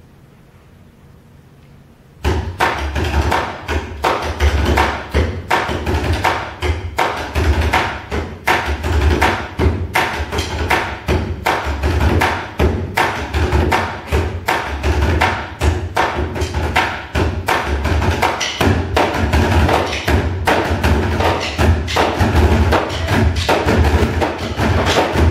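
A percussion ensemble starts drumming suddenly about two seconds in: fast, dense strikes on large barrel drums with a deep low thud under sharper wooden hits, continuing without a break.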